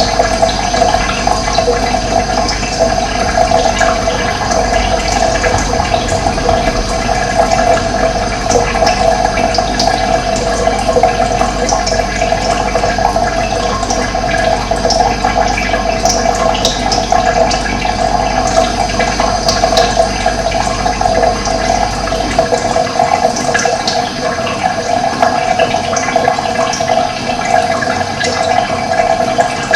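Steady rushing of running water, such as a stream or small cascade, with short high chirps scattered through it. A low rumble underneath drops away about three-quarters of the way through.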